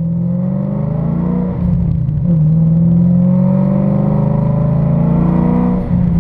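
Shelby GT500's supercharged V8 accelerating hard through the gears, the engine note climbing and dropping at upshifts about one and a half and two and a half seconds in, then climbing steadily again with a brief dip near the end. It is heard from the open cabin of the convertible, with wind rush.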